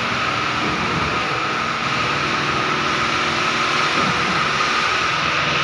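Concrete pump's engine running steadily: a constant drone with a steady higher whine over it.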